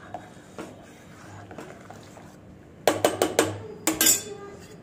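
A metal spoon stirring hot cocoa milk in a stainless steel pot, soft at first, then a quick run of sharp clinks about three seconds in and two more a moment later as the spoon knocks against steel.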